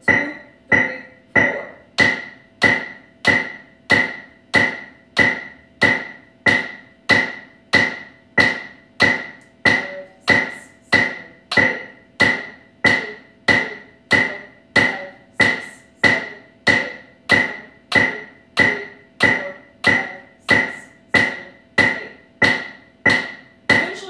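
Drumstick strokes played in time with a metronome click through an amplifier, one stroke per click at a steady pace of about 85 a minute.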